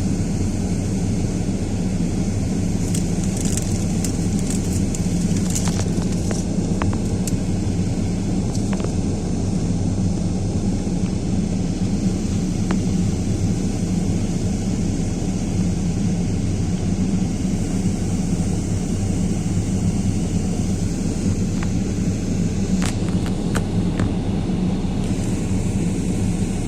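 Storm wind blowing hard and steadily, a heavy low rumble of wind on the microphone, with a few faint clicks.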